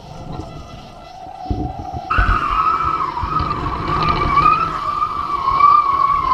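Riders picking up speed on kitefoil boards: a steady high whistle starts abruptly about two seconds in and holds, wavering slightly, over a low rush of wind and water.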